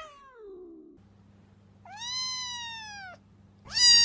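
Cat meowing three times: a falling meow trailing off in the first second, a long high meow about two seconds in, and a louder meow starting near the end.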